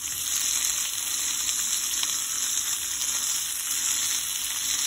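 Shrimp skewers frying in hot olive oil in a pan, a steady sizzle.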